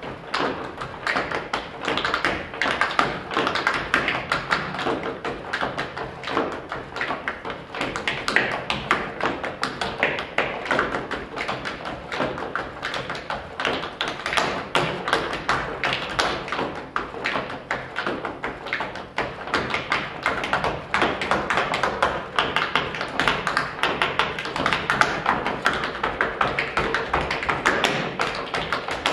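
Tap shoes' metal taps striking a wooden floor: a group of tap dancers beating out fast, dense rhythms with no letup.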